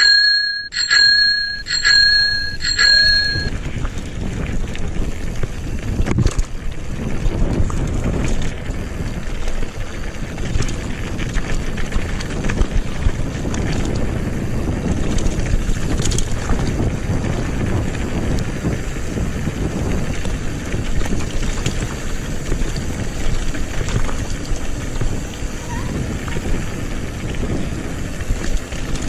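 A bicycle bell rings several times in quick succession over the first few seconds, then a mountain bike rolls steadily over a gravel road with continuous tyre and wind rumble.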